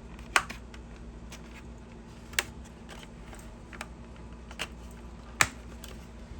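Plastic clips of a car radio's screen housing clicking and snapping as the housing is pried apart: three sharp snaps among fainter clicks.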